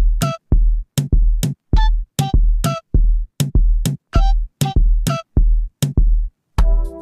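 Electronic background music: a steady drum-machine beat of about two kicks a second, with short synth notes. Near the end the beat pauses briefly and a fuller sustained chord comes in.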